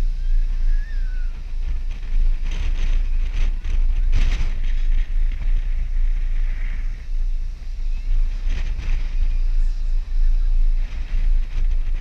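Wind buffeting the microphone of a camera riding a high swinging amusement ride: a heavy, gusty low rumble that rises and falls, with a few brief louder rushes of air.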